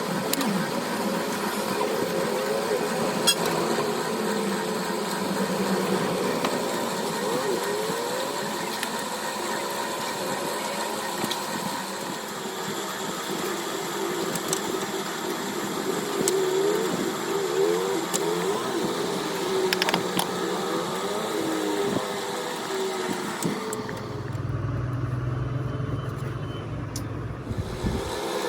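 Vehicle engine and traffic noise with a steady background hum. About 24 seconds in it changes abruptly to a low, muffled engine rumble.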